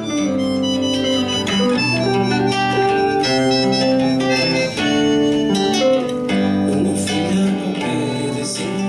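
Instrumental music: melodic held notes with rich overtones, changing pitch every second or so.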